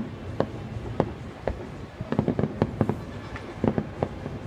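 Fireworks going off: an irregular series of sharp bangs and pops, with a quick cluster of them about two seconds in.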